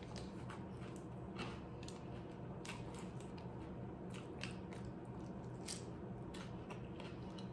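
Close-miked chewing of loaded nachos: scattered sharp crunches of tortilla chips between softer chewing.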